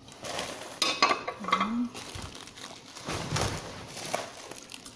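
Plastic bubble-wrap packaging crinkling and rustling, with scattered sharp clinks of dishware as wrapped plates are handled. A brief vocal sound about a second and a half in.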